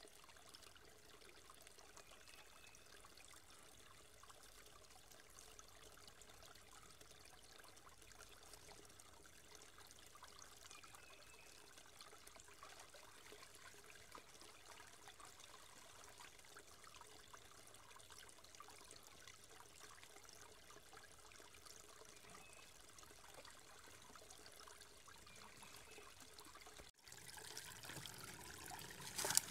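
Small woodland creek trickling faintly over rock ledges, a steady quiet wash of water. About two seconds before the end the sound grows louder and ends in a single sharp knock.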